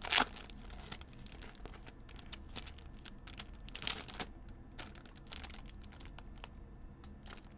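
Clear plastic bag and origami foil paper crinkling and rustling as the sheets are slid out and handled. The rustles are short and scattered, with louder crackles just after the start and about four seconds in.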